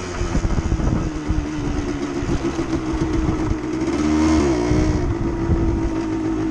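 Suzuki TSR motorcycle engine running steadily as it is ridden over a rough dirt trail, with wind and bumps buffeting the microphone. About four seconds in, the engine note dips briefly and comes back up as the throttle eases off and opens again.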